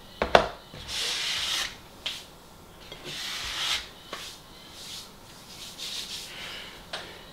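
An unidentified animal outside giving a series of raspy, hoarse calls of varying length, taken for a mating call. A sharp knock comes just before the first call.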